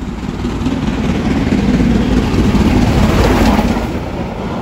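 Steam locomotive and tender roaring through the station at speed: the rumble builds as it approaches, is loudest as it passes close about three seconds in, then eases off.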